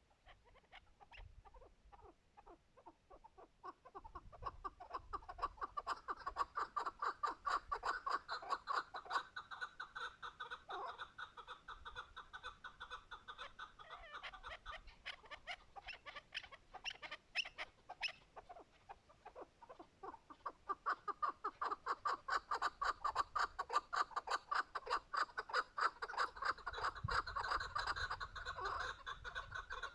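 Chukar partridges calling: a long run of rapid clucking notes, many a second, that grows louder about four seconds in, eases in the middle and swells again after about twenty seconds.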